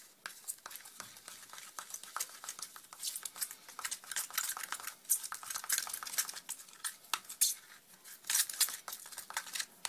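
A metal-tipped tool stirring thick homemade structure paste (gesso, white glue, talc and a little baking soda) in a small cup, with quick, irregular clicks and scrapes of metal against the cup's sides as the paste is mixed smooth.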